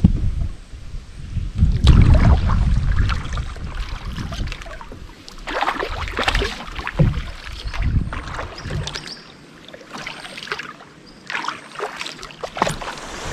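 Canoe being paddled: paddle strokes splashing in the water, with sharp knocks and splashes in clusters, and a low wind rumble on the microphone in the first few seconds.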